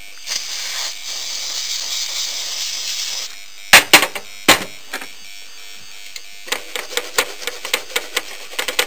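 Aerosol flux remover sprayed onto a circuit board: a steady hiss for about three seconds, then a few sharp knocks as things are handled. From about six and a half seconds in, a toothbrush scrubs the flux off the board in quick scratchy strokes.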